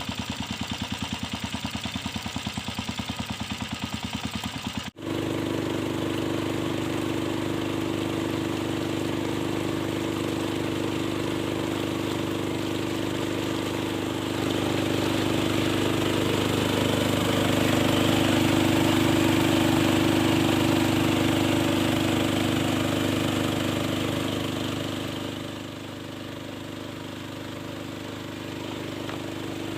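Small engine of a home-built river gold-mining machine running steadily. There is a brief break about five seconds in; the engine grows louder in the middle stretch and eases off somewhat near the end.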